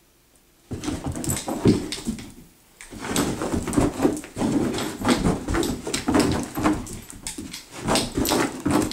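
Dog whining and yelping in rapid, excited bursts as it chases a laser pointer dot. It starts suddenly under a second in and pauses briefly about halfway through the first three seconds.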